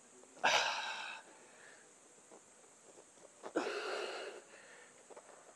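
A man's forceful breaths of exertion during dumbbell squats: two sharp, hissing exhales, each under a second, about three seconds apart, one with each squat.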